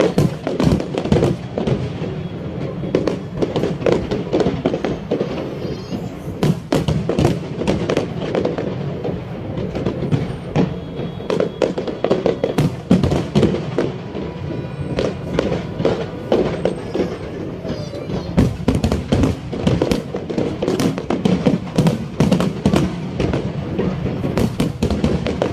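Fireworks display going off in a dense, continuous barrage of irregular bangs and crackles.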